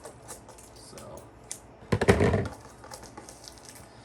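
Handling of a trading-card mega box and its packaging: light scattered clicks and crinkles, with one louder, brief rustling rip about two seconds in.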